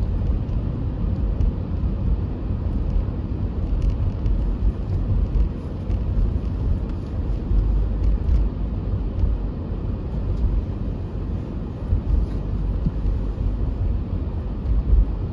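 Steady low rumble of a car driving, heard from inside the cabin: engine and tyres on a wet road.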